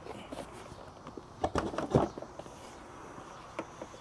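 A lift chair's removable tray top being handled and set onto its mounting post: a few light knocks and clicks about one and a half to two seconds in, and one more click near the end.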